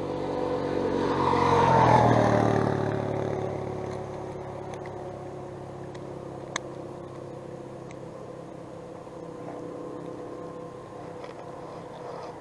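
An engine passes by: it grows to its loudest about two seconds in, with its pitch sagging slightly, then fades, leaving a steady low hum and a few faint clicks.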